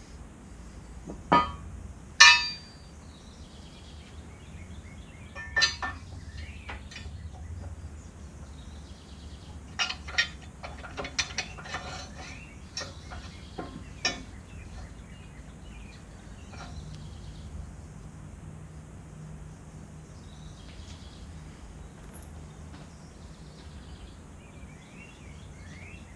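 Intermittent metallic clinks and clanks of hand tools and steel backhoe pin hardware being handled, the loudest about two seconds in and a flurry of them between roughly ten and fourteen seconds.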